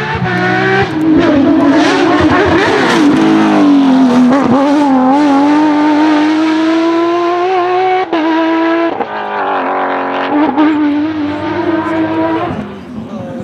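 Porsche 997 GT3 rally car's 3.6-litre flat-six running hard at high revs, its pitch dipping and climbing again as it changes gear. The engine note breaks off sharply twice a little past the middle and fades near the end.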